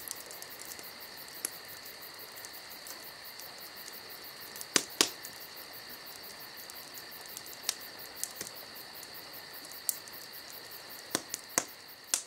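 Insects chirping steadily in a high, fast trill, with a few sharp clicks scattered through, the loudest pair about five seconds in.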